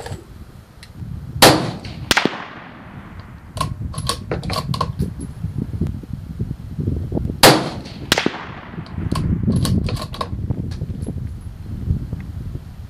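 Two rifle shots from a .223 Remington bolt-action Savage Axis, about six seconds apart, each followed by a ringing echo. Between and after the shots come a series of lighter metallic clicks, the bolt being worked to chamber the next round.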